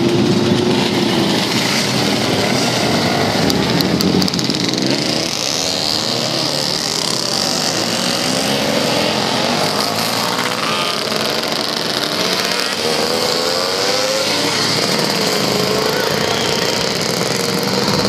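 Several classic two-stroke racing motorcycles revving hard and accelerating away together. Their overlapping engine notes rise and fall in pitch through the gears.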